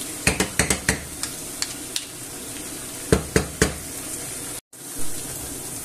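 Sausages, onion and garlic sizzling steadily in hot oil in a non-stick frying pan, with wooden spatulas clacking against the pan in two short spells of stirring, near the start and about three seconds in. The sound drops out for a moment near the end.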